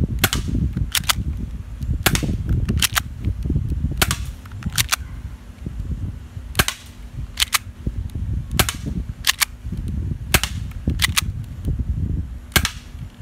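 Airsoft pistol being fired about a dozen times at an irregular pace, roughly one shot a second. Each shot is a sharp crack, most heard as two quick cracks close together, over a low rumble.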